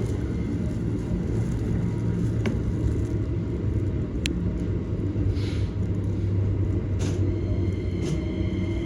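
Keikyu Main Line train heard from inside the car, running at reduced speed after an emergency brake application set off by a level-crossing warning signal. A steady low rumble, a couple of sharp clicks, and a whine that begins to rise near the end.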